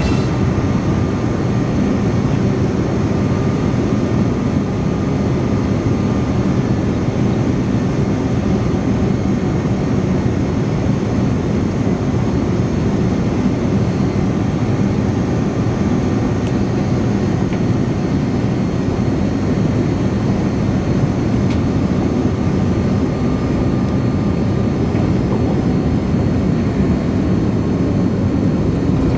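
Cabin noise of a Boeing 787-9 landing, heard from a window seat beside its Rolls-Royce Trent 1000 engines. A steady, loud roar of engines and rushing air continues without a break through the last of the approach, the touchdown and the roll along the runway.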